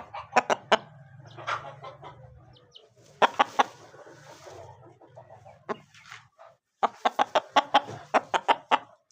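Aseel rooster clucking in quick runs of short, sharp clucks: three bursts, the longest near the end, over a steady low hum.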